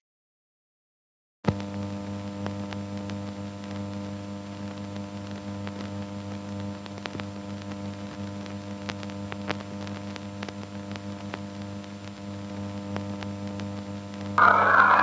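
Silence, then about a second and a half in a steady electrical mains hum cuts in suddenly, low and buzzing, with faint crackles of static. Near the end a much louder noisy rush comes in and rises slowly in pitch.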